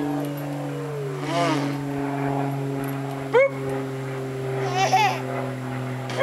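A toddler babbling and letting out short high-pitched squeals every second or two as she swings, over a steady low hum.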